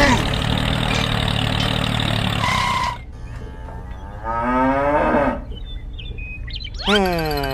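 A steady motor hum runs for about three seconds and then cuts off. About a second later comes a long, falling mooing call, and a second falling call starts near the end.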